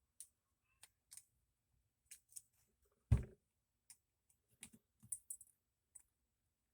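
Small knife parts being handled on a work surface: scattered light clicks and taps, with one louder knock about three seconds in.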